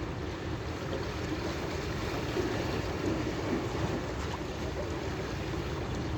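Steady wind buffeting the microphone over the wash of the sea, an even, unbroken rushing noise.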